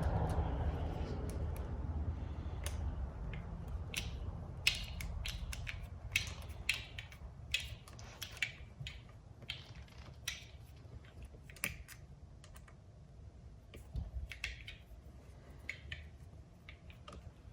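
Irregular small metallic clicks and taps of a 3 mm Allen wrench tightening the screws of an e-bike display clamp on the handlebar, the clicks thickest in the middle.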